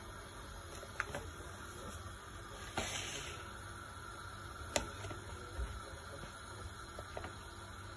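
A metal spoon gives a few light clicks against a stainless steel pot and there is a short rustle as flour is spooned into milk, over a steady faint hiss.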